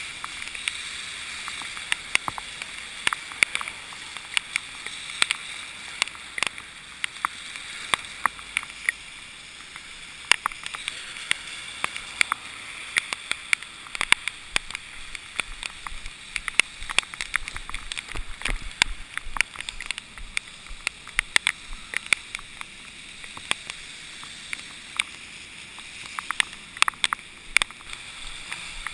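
Steady hiss of wind and wet road noise while cycling, with many irregular sharp taps on the camera.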